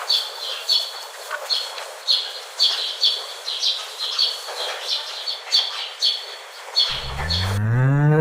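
A bird chirping over and over, two or three short chirps a second, over a hissy outdoor background. Near the end a deep animal call breaks in and rises in pitch.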